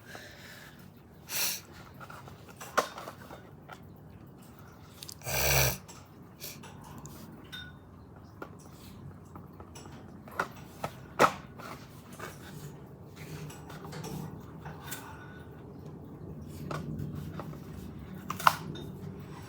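Handling noise from unboxing Hot Wheels toy cars: scattered sharp clicks and taps of small hard plastic and metal parts, with two short bursts of packaging rustle, one about a second and a half in and a louder one about five and a half seconds in.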